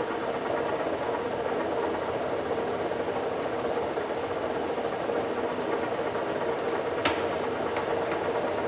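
Mazak 18" x 60" engine lathe running steadily in its low speed range with the carriage power feed engaged, a steady gear hum with a tone in it. A single sharp click about seven seconds in.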